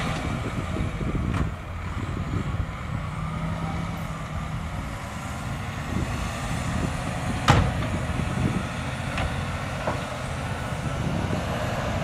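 Diesel engine of a dump truck running steadily with its bed raised, tipping a load of dirt, with one sharp bang a little past halfway.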